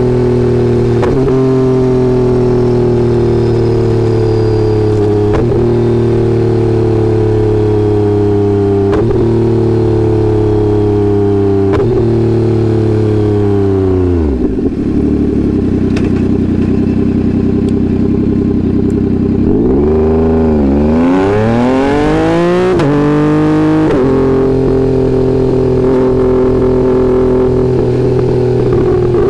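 2022 Yamaha XSR900's inline-three engine through a Kelpi full exhaust, heard from under the seat while riding. It holds a steady cruise, then the revs fall away to idle about halfway through. A few seconds later it revs up hard through a quick run of upshifts and settles back into a steady cruise.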